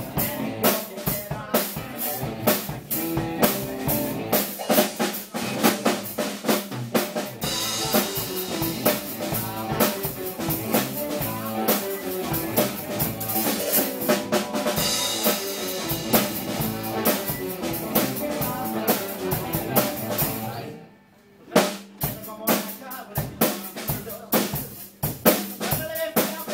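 Live rock band playing: drum kit with kick and snare driving the beat, electric guitars, bass and keyboard. A little past three-quarters of the way through the band stops dead for about a second, a single hit lands, and the band comes back in.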